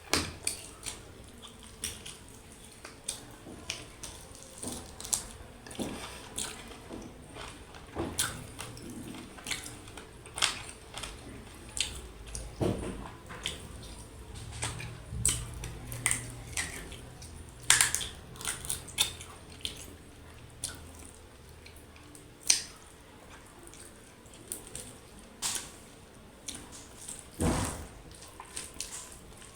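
Close-up eating sounds of mutton curry with rice and dal: wet smacking, chewing and irregular sharp mouth clicks.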